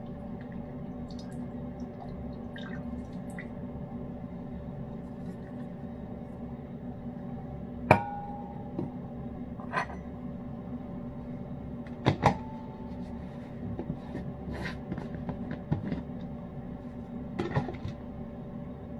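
Steady low hum of a running room appliance. Over it, two sharp clinks of hard objects set down on a stone countertop, about four seconds apart, each ringing briefly, with a few lighter taps and rustles of handling.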